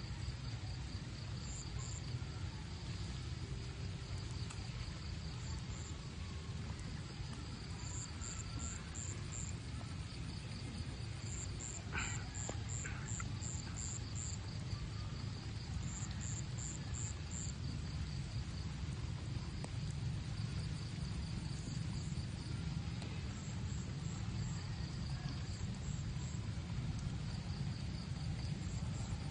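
Insects chirping in repeated trains of rapid, high-pitched pulses, over a steady low rumble, with one brief sharp sound near the middle.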